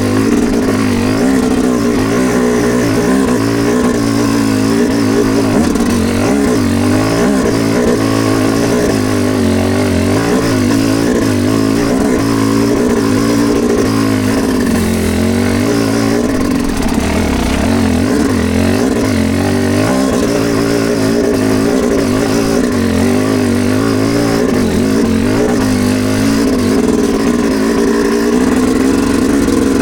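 Dirt bike engine working hard on a trail climb, its pitch rising and falling continuously as the throttle is worked, with no pause for the whole stretch.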